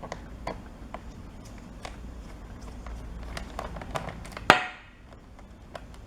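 Small clicks and taps of a screwdriver working the captive screws of a laptop's bottom cover, with one much louder sharp clack about four and a half seconds in that rings briefly.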